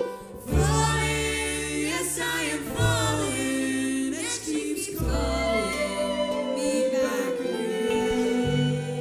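Male and female voices singing a melody together in harmony, over strummed acoustic guitar and long held low bass notes, in a bluegrass string band arrangement.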